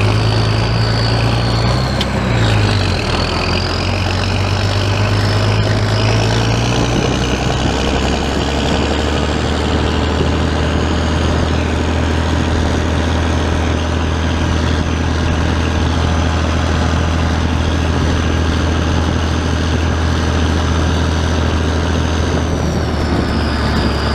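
Oliver tractor engine running steadily at road speed, heard close from the operator's seat. Its note drops a little about two and a half seconds in and again about seven and a half seconds in, with a high thin whine over it that dips, rises and holds, then falls near the end.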